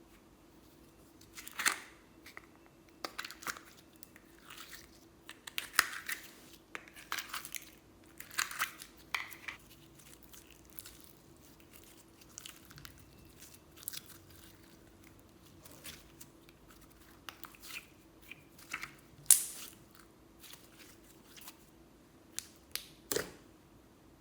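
Slime being squished and stretched by hand, giving irregular sticky crackles and pops, some much louder than others, over a faint steady hum.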